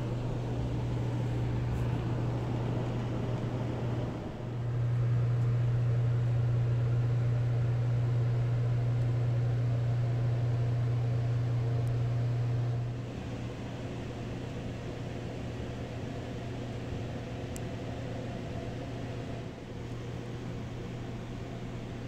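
Steady low mechanical hum inside a passenger rail car, from its ventilation and onboard machinery. It is louder for a stretch from about four seconds in to about thirteen seconds.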